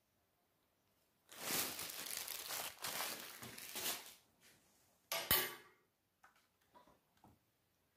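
A plastic bag of tapioca starch crinkling as it is handled and moved aside, for about three seconds. A single sharp knock follows a little after five seconds in, then a few faint taps.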